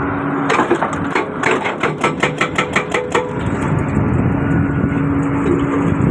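Excavator-mounted hydraulic breaker hammering, a rapid run of blows about six or seven a second that lasts about three seconds and then stops, while the excavator's engine keeps running steadily.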